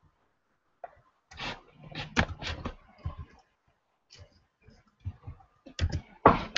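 Computer keyboard typing: irregular clatter of keystrokes, bunched in a run early on, then a few single key clicks.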